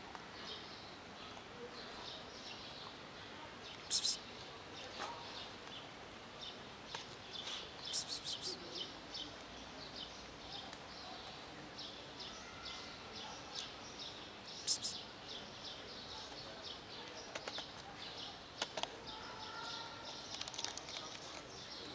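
Small birds chirping over a steady urban background, a run of short high notes repeating throughout, with a few sharper, louder sounds about four, eight and fifteen seconds in.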